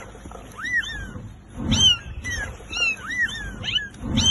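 Several trapped kittens mewing over and over in quick, high-pitched calls. Twice, about two seconds in and again near the end, a louder mew comes with a low thud.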